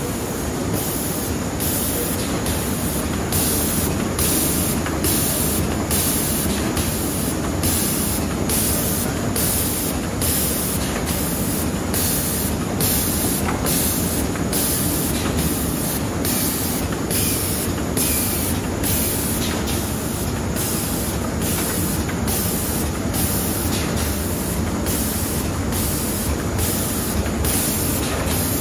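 High-speed laminating machine running steadily, with its offset sheet feeder's air-blowing system hissing in a regular pulse, about three times every two seconds, as each sheet is fed.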